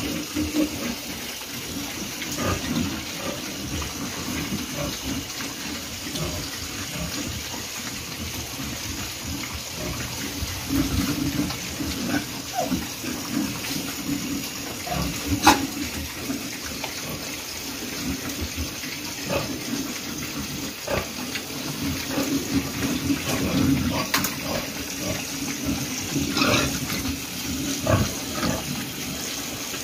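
Two-month-old fattener pigs eating wet feed from a trough: steady wet slurping and chomping, with a sharp knock about halfway through and another a few seconds later.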